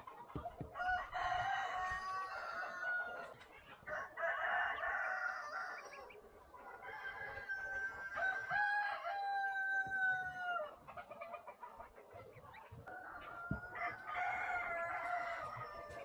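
Roosters crowing, about four long crows in turn, some of them overlapping.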